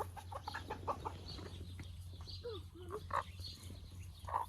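Domestic chickens clucking: a quick run of short clucks, then a few longer drawn-out calls, one louder call about three seconds in and another near the end.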